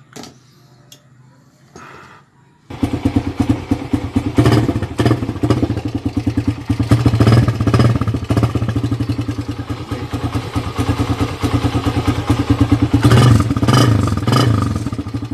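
Suzuki Raider 150's single-cylinder four-stroke engine running through an exhaust with its catalytic converter removed, loud and rapidly pulsing, blipped up several times. A few faint knocks come before the engine sound cuts in, about three seconds in.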